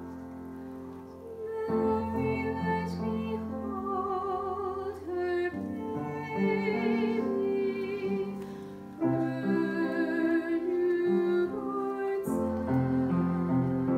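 A woman singing a solo with strong vibrato over piano accompaniment; the piano plays alone for the first couple of seconds before her voice comes in.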